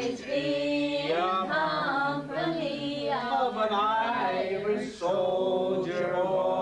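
Unaccompanied singing, the voices drawing out long held notes, with a brief break for breath about five seconds in.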